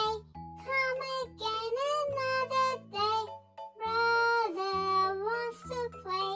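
Nursery-rhyme music: a high, child-like voice singing a melody over a simple backing with held bass notes.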